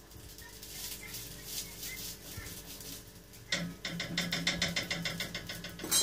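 Small barley-grit harcha patties frying in a pan with a faint crackle, then a rapid, even run of clicks, about ten a second, for the last two and a half seconds or so.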